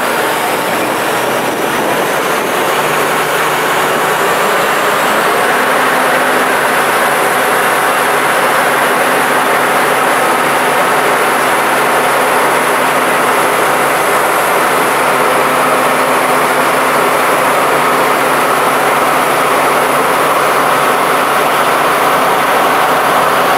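Unlimited hydroplane's gas-turbine engine running at speed: a loud, steady noise with a high whine that climbs over the first several seconds and then holds level.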